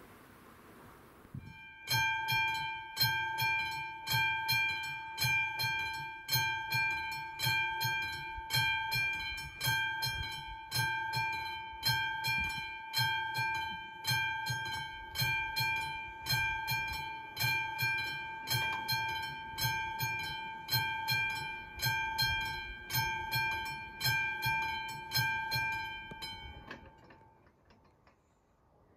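Level-crossing warning bell ringing with rapid, even, repeated metallic strikes while the crossing is closed for an approaching train. It starts about a second and a half in and stops shortly before the end.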